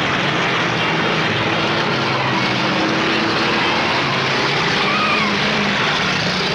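Many derby cars' engines running together in a loud, steady din, with a brief higher pitched sound rising and falling about five seconds in.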